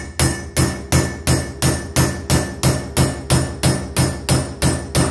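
Hammer striking a valve guide driver in a steady rhythm of about three blows a second, each with a short metallic ring. The blows drive worn cast-iron exhaust valve guides out of a Subaru EJ25 SOHC aluminum cylinder head.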